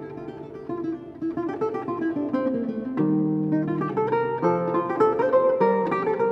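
Solo Renaissance lute playing plucked polyphonic music: a running line that falls over held bass notes, then a new chord with fresh bass notes struck about halfway through.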